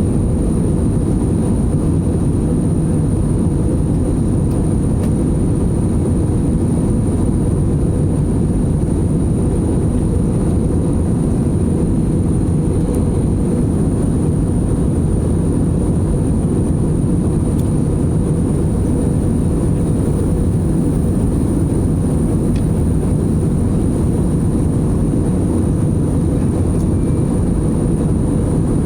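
Airliner cabin noise in flight: a steady low rumble of engines and rushing air, with a thin high whine above it.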